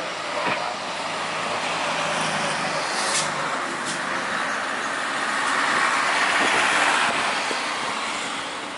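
Airbus A320 jet engines running as the airliner taxis past and away, a steady jet rush that swells about six to seven seconds in, then eases.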